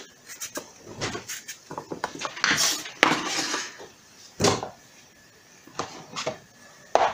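Kitchen knife cutting raw potato on a wooden cutting board: a run of short knocks of the blade on the board, then a louder scraping sweep as the cut pieces are gathered across the board, with single sharper knocks about four and a half seconds in and near the end.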